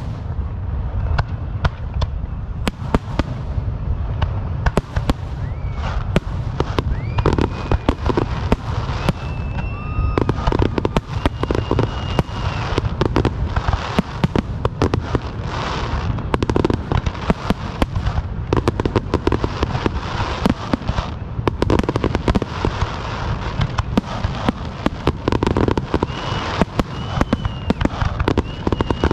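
Fireworks going off in rapid succession: dense cracks and bangs over a steady low rumble, with several high whistles that rise and then hold, about a quarter of the way in, around the middle third, and again near the end.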